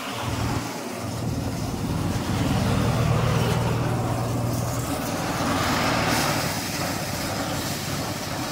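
Portable rice thresher driven by a small single-cylinder petrol engine, running steadily with a low hum while rice stalks are fed into the drum. A louder rushing noise swells around five to six seconds in.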